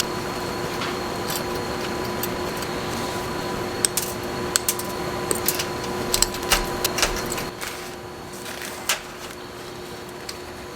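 Small, sharp clicks and taps of bulb holders, wire terminals and connector pieces being handled and pressed together, clustered from about four to nine seconds in, over a steady electrical hum.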